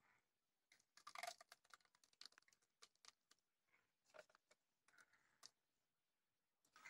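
Faint, scattered light clicks and soft scrapes as thick ground coconut paste is scooped into a clay pot and spread around it.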